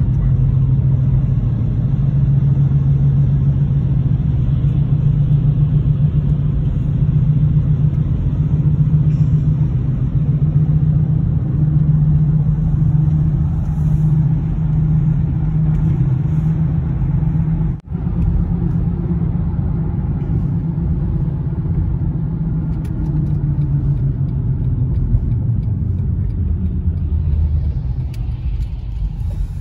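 Car driving on winter roads, heard from inside the cabin: a steady low engine-and-tyre rumble, with a brief dropout about two-thirds of the way through.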